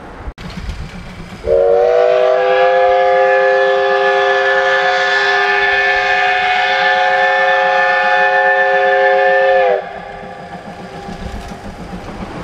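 Steam whistle of the C12 66 tank locomotive blowing one long blast of about eight seconds, several pitches sounding together as a chord and sagging slightly as it cuts off. A duller running noise of the train carries on under it and after it.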